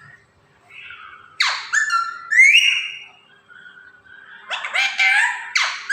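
Two bouts of meowing, each a few drawn-out calls that slide in pitch. The first starts about a second and a half in, the second near the end.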